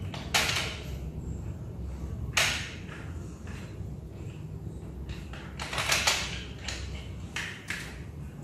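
Several short clicks and clacks from the clamp head of an aluminium bicycle repair stand being turned and worked by hand, with the busiest cluster about six seconds in.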